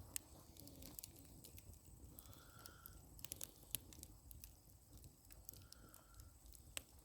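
Faint crackling of a campfire's coals and low flames, with scattered sharp pops over a quiet background.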